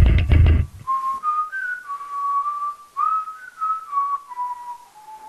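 A loud burst of music cuts off just under a second in. Then a person whistles a slow tune, one clear note at a time, sliding between notes and drifting lower toward the end.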